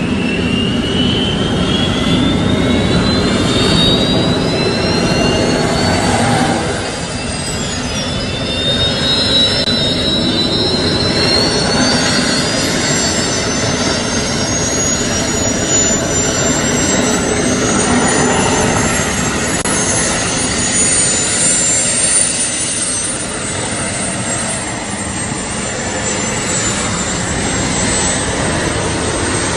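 Jet engine running with a steady roar and a high whine that slowly rises and falls in pitch.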